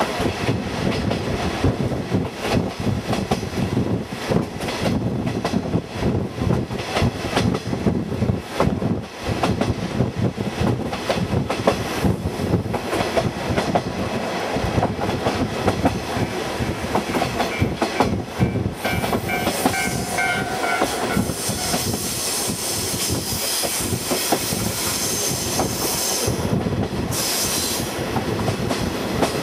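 Running noise of a KiHa 48 diesel railcar heard through open trolley-car windows at speed: wheels clattering over the rails with the diesel engine running underneath. A faint thin wheel squeal comes in about halfway through, and a rushing hiss grows louder in the later part.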